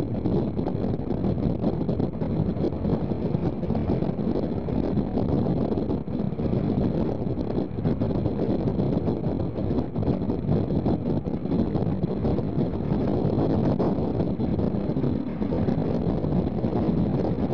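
Steady running noise of a steam-hauled passenger train moving at speed, heard from an open carriage window, with wind buffeting the microphone.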